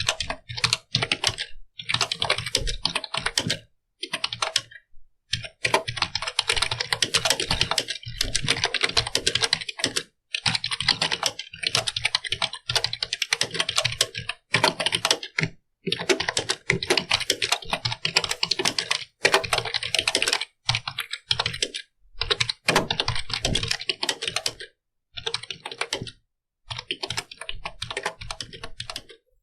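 Computer keyboard being typed on: fast runs of key clicks broken by short pauses every few seconds.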